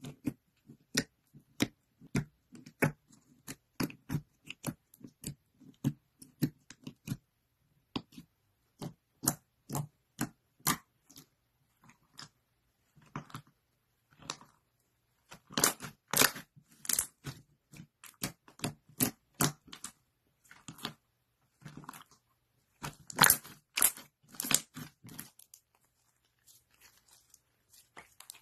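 Slime being squeezed and kneaded by hand, giving a string of short sticky pops and crackles. They come thickest in two flurries, around the middle and again about two thirds in, then stop a few seconds before the end.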